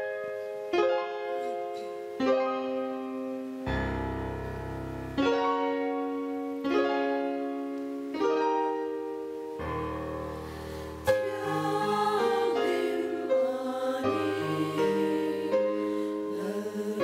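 Piano introduction of slow struck chords, one about every second and a half, twice with deep bass notes. About eleven seconds in, a mixed choir comes in singing in Mizo over the piano.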